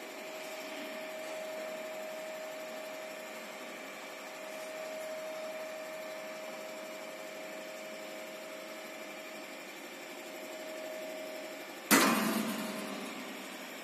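Steady machine hum with a constant whine, then about twelve seconds in a single loud knock against the test bench's sheet-metal panel that rings out briefly.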